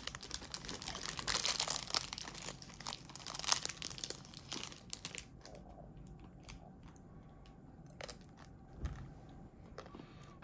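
Crinkly ice-cream wrapper being torn open and crumpled for about five seconds. Then it goes quieter, with a few light taps and a soft knock near the end.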